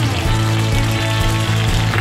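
Background music: sustained chords over a held bass note.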